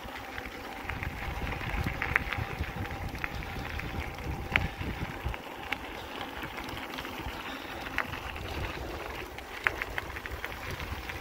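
Ebike tyres rolling over a gravel road, with a low rumble of wind on the microphone and a few sharp clicks scattered through.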